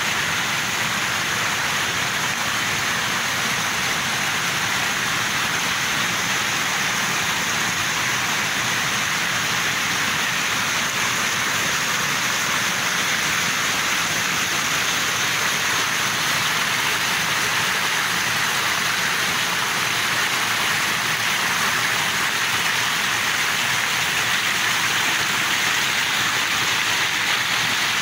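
A small stream cascading over rocks: a steady rush of falling, splashing water.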